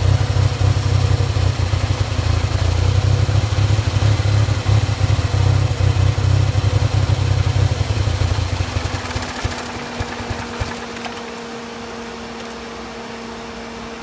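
Ford Ranger 2.3-litre four-cylinder engine at a rough, sputtering idle, its low rumble pulsing unevenly. The rough idle persists despite new plugs, wires, coil pack, PCV valve and throttle position sensor and a cleaned MAF sensor. About nine seconds in the rumble dies away, leaving a quieter steady hum.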